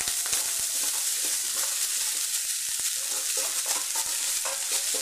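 Chopped fresh fenugreek (methi) leaves sizzling steadily in hot oil with cumin seeds in a pan, with small clicks and scrapes as they are stirred.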